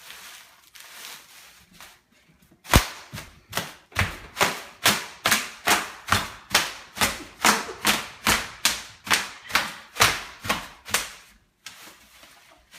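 Bubble wrap being popped by hand: a long run of sharp pops, about two or three a second, starting a few seconds in and stopping near the end.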